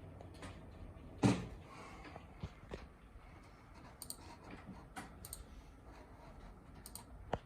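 Scattered light clicks and knocks of computer hardware being handled during a PC build, with one louder knock about a second in.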